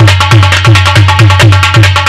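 Instrumental folk-music interlude: a large barrel drum (dhol) beats an even, fast pattern of deep strokes about four a second, each bending down in pitch, under a short repeating high melodic figure.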